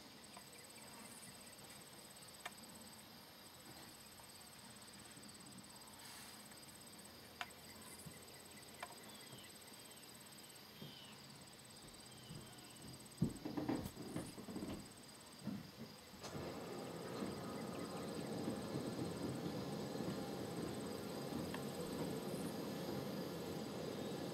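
Crickets and other insects trilling in a steady, finely pulsing high chorus. A few knocks come a little past the middle, and about two-thirds through a louder steady rushing noise joins.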